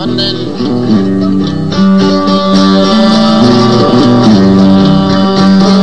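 Music played on plucked string instruments, guitar-like: a melody of held notes stepping up and down over a moving bass line.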